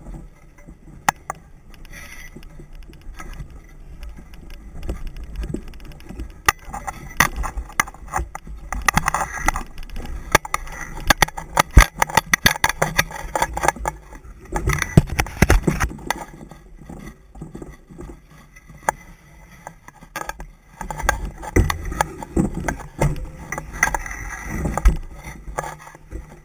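A wheeled dryland mushing rig rolling fast over a bumpy dirt forest trail behind a pulling husky. It gives an uneven rumble and rattle, with jangling metal fittings and frequent irregular knocks.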